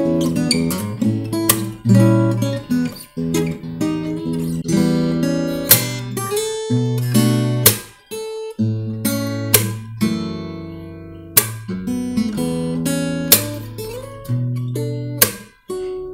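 Seizi Nagoya steel-string acoustic guitar played fingerstyle: a melody picked over a bass line, with a sharp strummed accent about every two seconds. Recorded on a phone's built-in microphone.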